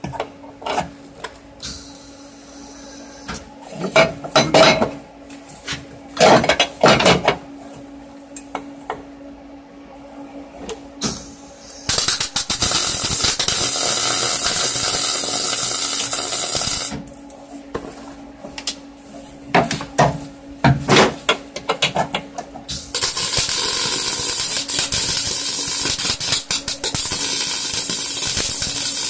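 MIG welder arc crackling and hissing in two long runs, one from about twelve to seventeen seconds in and another from about twenty-three seconds to the end, as steel is welded into a car's rusted floor pan. Before the first run come several sharp knocks and clatters of metal being handled.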